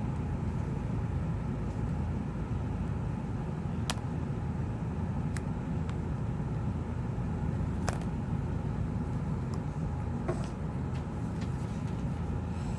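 Steady low background rumble, with a handful of sharp, separate clicks of a small tool prying at the tablet's battery connector and internals.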